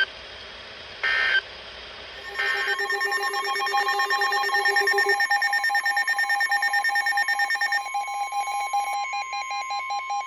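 Two short, harsh Emergency Alert System data bursts, the end-of-message code. About two and a half seconds in, an electronic alert alarm starts, beeping very rapidly in several tones over a steady tone near 1 kHz.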